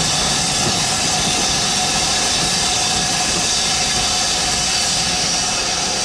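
A steam-hauled train of vintage coaches pulls slowly out of the platform. A loud, steady hiss of steam runs on without a break.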